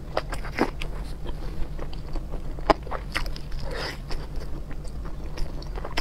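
Someone eating seafood close to the microphone: irregular bites, cracks and chewing, with one sharper crack a little before the middle. A steady low hum runs underneath.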